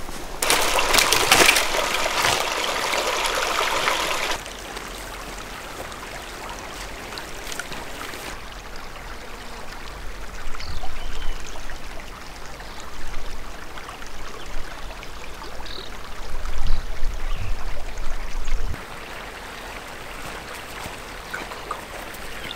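A small mountain creek flowing and trickling over rocks, loudest in the first four seconds and quieter after. Irregular low rumbling comes and goes through the middle stretch.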